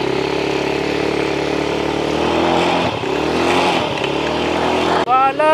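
Jet ski engine running steadily, its pitch dipping briefly about three seconds in and then picking up again. A loud high-pitched cry cuts in just before the end.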